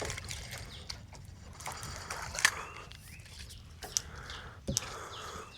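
Birds chirping, with a few sharp clicks and a dull knock, the loudest click about two and a half seconds in.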